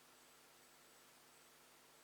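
Near silence: faint steady hiss with a low electrical hum.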